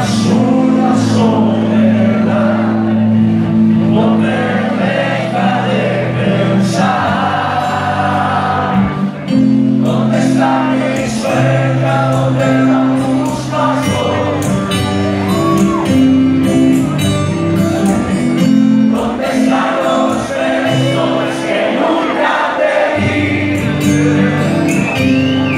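Live band playing: a male lead singer over electric guitar, bass and drums with cymbal hits, loud and continuous.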